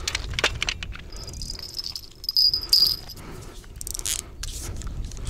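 Spinning reel's drag buzzing for about two seconds as line is pulled off, the drag set too loose, among scattered clicks of handling.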